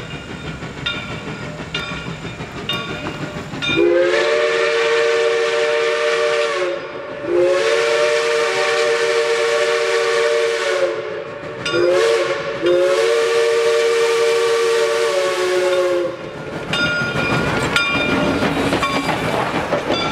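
Reading & Northern 425's Pacific steam locomotive blows its replica CNJ three-chime whistle in the grade-crossing signal: long, long, short, long, each blast sagging slightly in pitch as it starts and ends. Its bell rings about twice a second before and after the whistle. Near the end the engine and tender roll past with wheels clacking over the rail joints.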